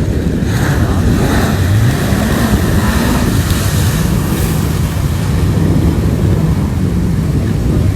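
Jet ski engine revving, its pitch rising and falling several times, under heavy wind rush on the microphone.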